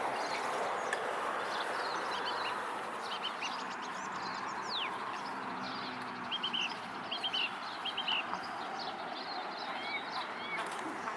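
Many short, high bird chirps and twitters scattered over a steady background hiss, with a few quick runs of repeated notes and one falling whistle.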